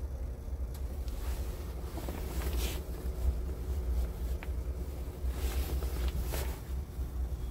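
Scania P truck's diesel engine idling with a steady low rumble, heard from inside the cab, with a few brief rustles of the camera being handled.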